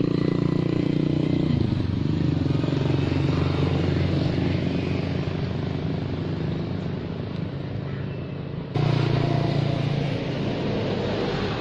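A steady engine hum running throughout, a little quieter after the first couple of seconds and suddenly louder again about nine seconds in.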